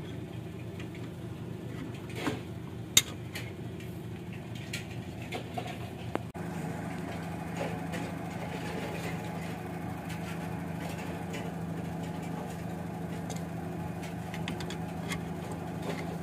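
Metal clinks of a spanner and a three-jaw bearing puller being handled, with one sharp clink about three seconds in. About six seconds in a steady low hum takes over.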